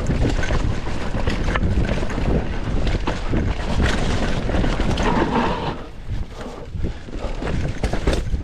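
Wind buffeting the microphone and a mountain bike rattling over rough singletrack on a fast descent, with many short knocks from the tyres and frame hitting the trail. It eases somewhat about six seconds in.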